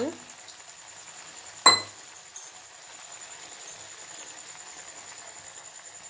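A single sharp, ringing metallic clink of steel kitchenware against the pan about two seconds in, over the faint steady hiss of the simmering masala gravy.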